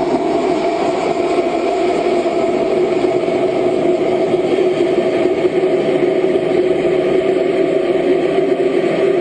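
Steady rushing roar heard onboard the GoFast amateur rocket as it climbs through the atmosphere, strongest in a low hum-like band.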